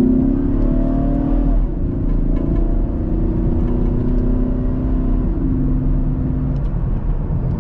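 Car engine, the 3.6-litre V6 of a 2015 Camaro, running steadily at light load. Its note holds level with small shifts and steps down slightly about five seconds in.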